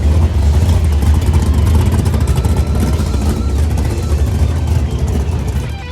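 Drag-racing Plymouth Road Runner's V8 engine running loud, with a heavy steady low rumble.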